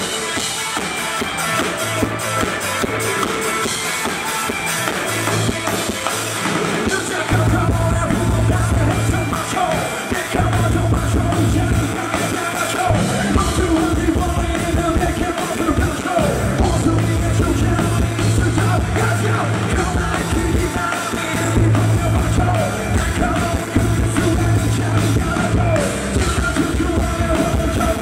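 A rock band playing live, with electric guitars, bass and a drum kit and a singer over it. The bass and drums fill out about seven seconds in. It is a rough, poor-quality audience recording.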